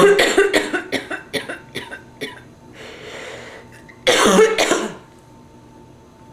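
A woman with bronchitis coughing: a rapid fit of about eight coughs that fade away, a breath, then one more loud cough about four seconds in.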